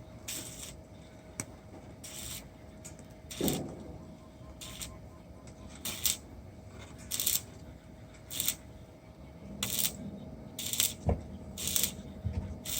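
Rhythmic rasping strokes on metal, about one every second and a quarter, over a faint steady hum.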